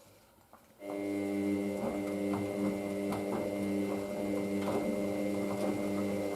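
Hoover DYN9144D3X washing machine's drum motor starting up about a second in, then running steadily with a hum and a thin high whine, with faint light knocks from the laundry. It is one of the machine's repeated attempts to balance the load before the intermediate spin.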